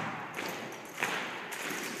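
Drill rifles being handled in a drill routine: the long echo of a heavy impact dies away, then two lighter knocks about half a second and a second in, each ringing on.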